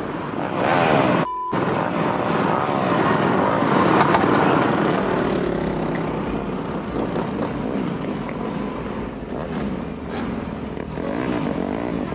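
Several dirt bike and quad engines run and rev as riders pass close by, their pitch rising and falling. The sound drops out briefly about a second in.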